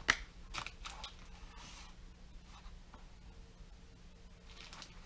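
Faint handling noises: a few small clicks and rustles in the first second, then quiet room tone with a steady low hum.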